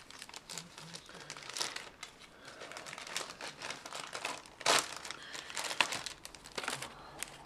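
Plastic packaging crinkling and rustling in irregular bursts while a model kit's decal sheet is unwrapped, with two louder crackles a little past halfway.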